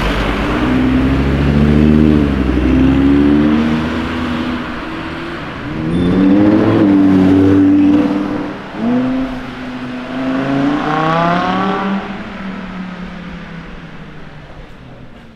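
Audi R8 V10 Plus Spyder's naturally aspirated V10 accelerating hard, its pitch climbing and then dropping at each of several upshifts. It fades out as the car pulls away near the end.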